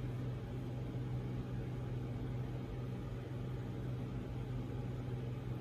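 Steady low hum with a faint even hiss over it: constant room background noise with no distinct event.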